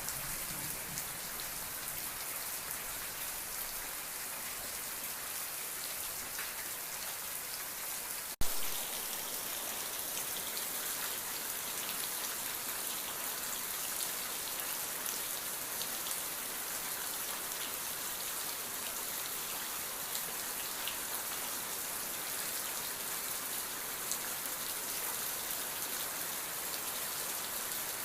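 Steady rain falling, with dense high pattering of drops hitting a surface. A single sharp click cuts through about eight seconds in.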